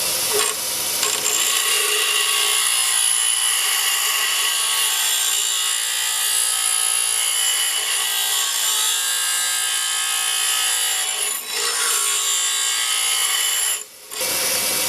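Bench grinder wheel grinding the steel of a forged railroad spike, steady and hissy, as the knife's point is ground down into a drop point. The grinding dips briefly once and then breaks off for a moment near the end.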